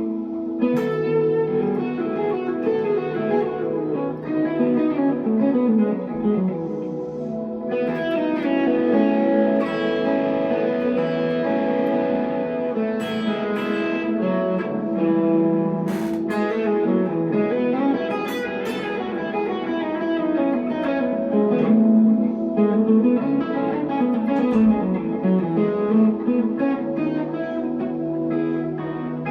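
Electric guitar, a 1963 Fender Telecaster through a Glaswerks Zingaro valve amp, playing a melodic passage of held notes and runs.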